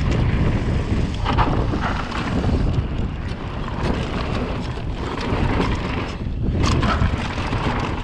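Wind buffeting the microphone of a camera on a mountain bike riding down a dirt trail. Frequent short clicks and rattles come from the bike over bumps, under a steady rumble.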